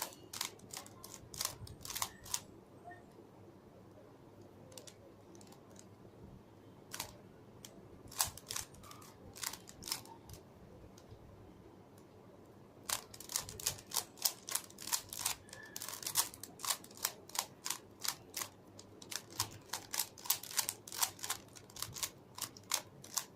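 Plastic Rubik's cube being twisted layer by layer, its faces clicking and clacking as they snap into place: a quick flurry at first, a stretch of occasional single turns, then a long run of rapid turns in the second half. These are the final moves of solving the last layer.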